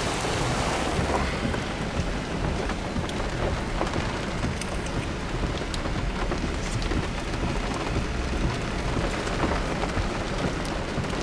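Rain falling on a car's roof and windshield, heard from inside the car: a steady dense hiss peppered with many small sharp drop impacts.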